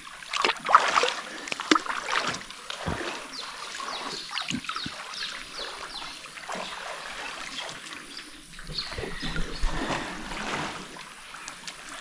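Water splashing as people wade and move about in a pool, in irregular splashes that are loudest in the first couple of seconds and then lighter.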